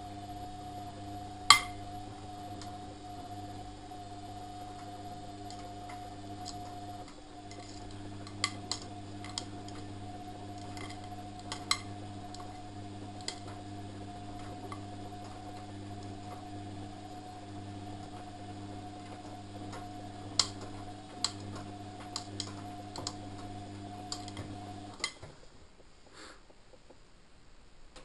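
Front-loading washing machine tumbling a load in its 60°C cotton wash: a steady motor hum and whine, with scattered sharp clinks of hard bits in the laundry striking the drum. About 25 s in the drum motor stops and the machine goes quiet for a pause between turns.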